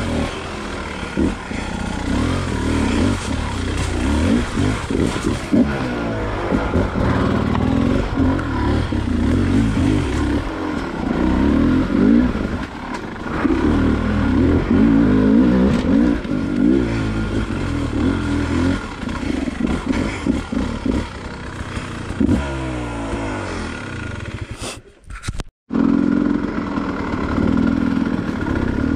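Enduro dirt bike engine revving up and down as it is ridden, its pitch rising and falling with the throttle. The sound cuts out briefly near the end.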